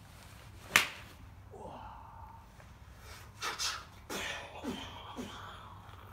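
A golf club strikes a ball off a driving-range mat with one sharp crack about a second in. A few short wordless vocal noises follow.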